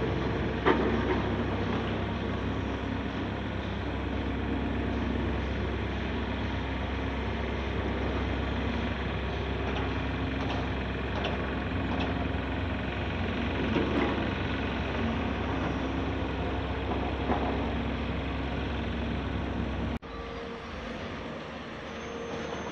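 Caterpillar 336 hydraulic excavator running steadily under load as it digs and swings, its engine and hydraulics making a constant drone, with a few metallic knocks, the sharpest about a second in. About twenty seconds in the sound cuts abruptly to a quieter engine drone.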